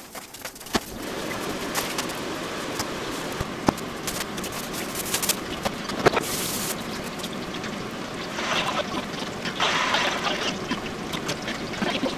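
Kitchen tap running steadily, starting about a second in, with scattered light knocks and clicks of handling.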